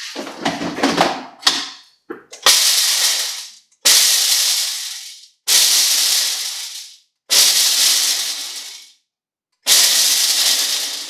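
Nutribullet-type blender pulsed five times in short bursts, each starting sharply and fading, as it whirls dried coffee beans still in their husks to crack the husks off. A few knocks and rattles come before the first burst.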